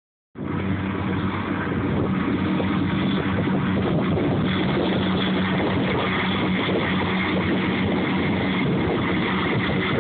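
Tractor engine and its hay mower running steadily while mowing, a continuous drone with a low hum.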